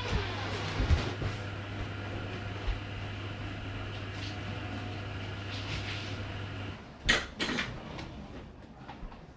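Whirlpool WFO3P33DLXUK dishwasher in its 65 °C main wash: the wash pump hums steadily with water spraying, then cuts out about two-thirds of the way through. Two sharp knocks follow half a second apart.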